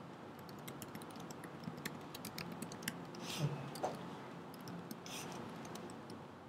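Typing on a computer keyboard: irregular key clicks, about three or four a second, as a terminal command is entered.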